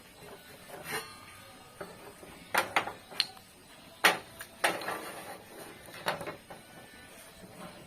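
Handling of a table saw's metal parts: a scattering of sharp clinks and knocks, a cluster of three a little over halfway through the first half and the loudest knock about four seconds in, with no motor running.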